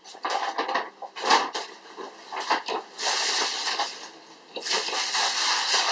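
Crinkly rustling of a wrapped gift being handled, in irregular bursts, with longer stretches about three seconds in and again near the end.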